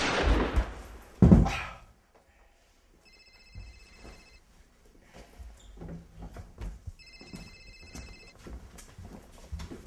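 A loud thump about a second in as the earlier noise dies away, then a telephone rings twice: a steady electronic trill in bursts of just over a second, about four seconds apart.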